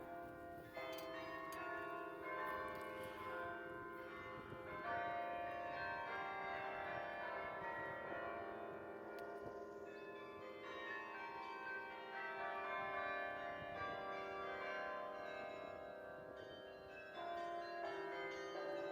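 Bok Tower's carillon playing a melody: bronze bells struck one after another, each note ringing on and overlapping the next as it fades.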